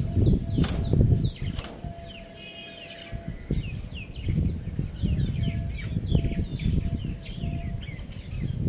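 Rooster wings flapping in short flurries over the first second and a half, with two sharp knocks, then small birds chirping in many short, high notes.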